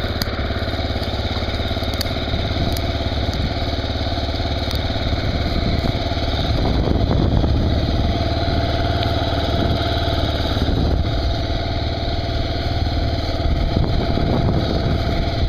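Kawasaki KLR motorcycle's single-cylinder engine running steadily, a little louder from about seven seconds in.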